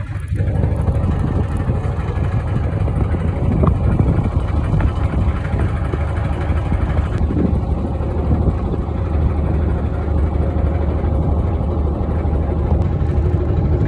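Yamaha marine engine of a DW-24 fishing boat idling steadily, a low even rumble.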